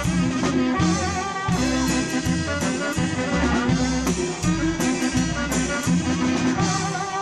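Waila (chicken scratch) band playing: a wavering saxophone lead over bass guitar and drums keeping a steady beat.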